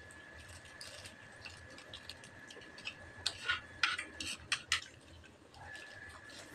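Eating by hand from a plate and a plastic food bag: a handful of short clicks, clinks and crinkles, bunched about three to five seconds in, over a faint steady high whine.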